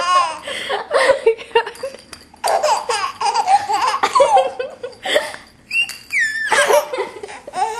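A baby and a woman laughing hard together, in repeated bursts of laughter broken by short breaths, with a few high-pitched squeals near the end.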